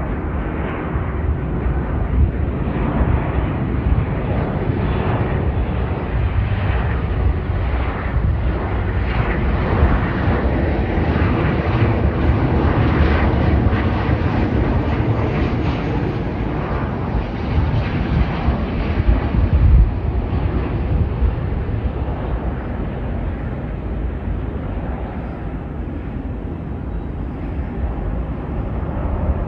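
Jet airliner's engines passing: a deep rumble throughout, with the engine noise swelling to a peak about halfway through and then fading away.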